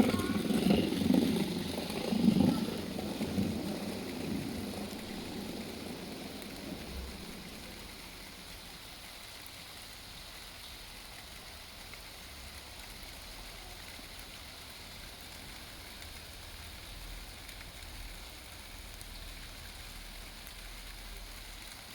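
Basement washing machine running: uneven knocking and sloshing for the first several seconds, then a steady faint hiss with a low rumble.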